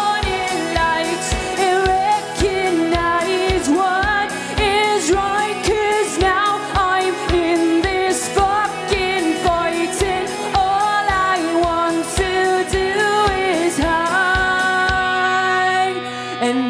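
Live rock band playing an instrumental passage: electric guitars, bass and a steady drum beat under a wavering lead melody. About a second before the end the drums and bass drop out, leaving held guitar tones.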